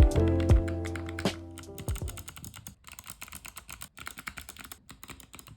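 Typing on a mechanical keyboard: a rapid, steady run of key switch clicks, with brief pauses. Background music with a beat fades out over the first two seconds.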